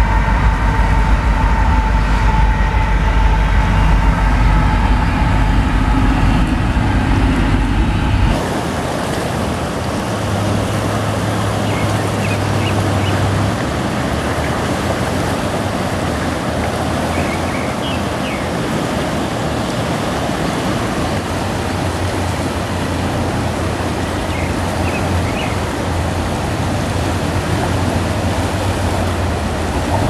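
A train rumbles past with steady tones over the rush of a river in spring flood, then cuts off abruptly about eight seconds in. After that only the even rushing of the floodwater is heard.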